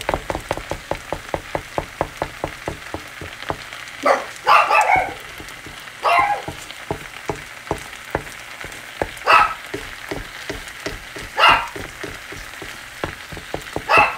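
A dog barking about six times, a couple of seconds apart, over rice and egg frying and crackling steadily in a pan.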